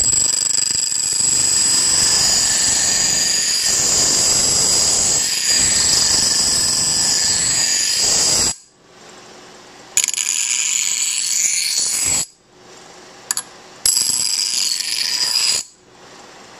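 Steel, a knife blade among it, pressed against the spinning grinding stone of a homemade bench grinder driven by a DC treadmill motor, giving a harsh, high-pitched grinding with a ringing edge. One long pass of about eight seconds, then two shorter passes of about two seconds each, with the motor and wheel running much more quietly in between.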